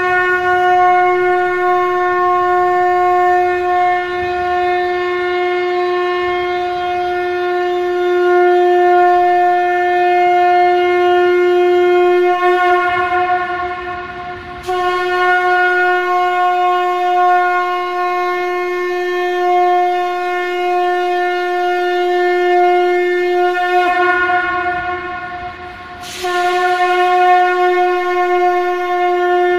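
Shankh (conch-shell trumpet) blown in long, steady blasts on a single held note. Twice the note weakens for a couple of seconds, then starts again sharply, roughly every ten to twelve seconds.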